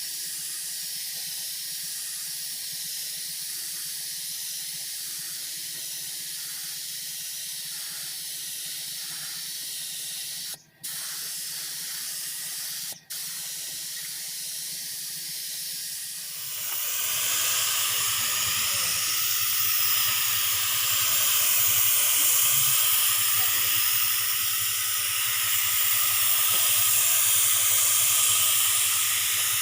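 Paint spray gun hissing steadily with compressed air. It cuts out briefly twice near the middle, then gets louder and fuller a little past halfway.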